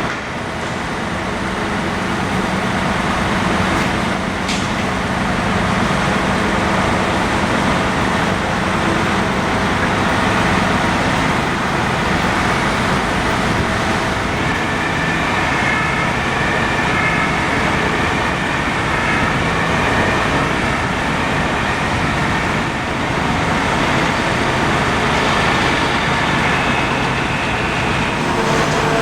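Steady diesel engine and traffic noise from construction vehicles and road traffic, with a high thin whine joining in about halfway through and lasting until near the end.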